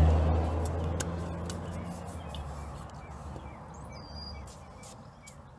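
A vehicle's low engine hum fading away over the first four seconds or so, with birds chirping faintly and a few light clicks.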